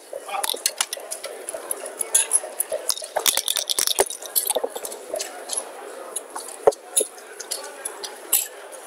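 Backgammon dice clicking and clattering: a dense rattle of hard plastic clicks, then a few sharp single clicks near the end as the dice are rolled onto the board.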